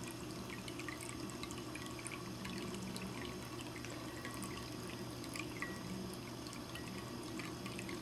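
Ceramic cat drinking fountain running: a thin stream of water falls from its leaf-shaped spout into the water-filled bowl, trickling steadily with many small splashing drips. A steady low hum runs underneath.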